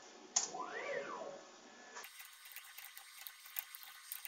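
A click, then the CNC router's stepper motors whining through a short move, the pitch rising and then falling as the axis speeds up and slows down. After that, only faint scattered ticking.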